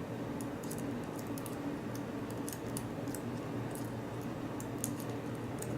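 Faint, irregular small metallic clicks and ticks from a shim being worked into a padlock, over a steady low hum.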